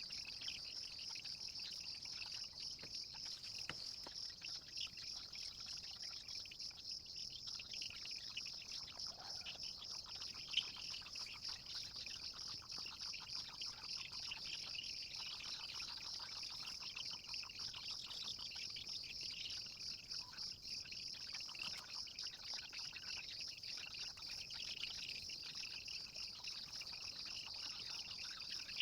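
Faint, steady high-pitched trilling of crickets, with softer chirping over it. There is a single light tap about ten seconds in.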